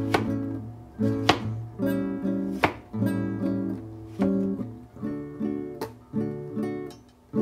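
Acoustic guitar playing a steady run of strummed and plucked chords.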